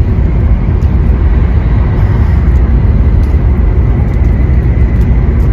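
Steady low rumble of a Joetsu Shinkansen bullet train running at speed, heard from inside the passenger cabin.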